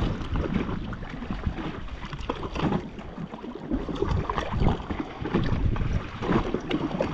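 Wind buffeting the microphone, with water lapping and knocking against the hull of a drifting jet ski.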